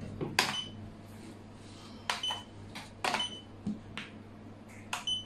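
Xiangqi pieces clacking down on a wooden board and a digital chess clock being pressed, its presses giving short high beeps, about four in all, over a steady low hum.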